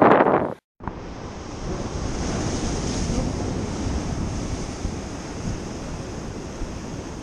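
Surf breaking and washing against jetty rocks, with steady wind blowing across the microphone.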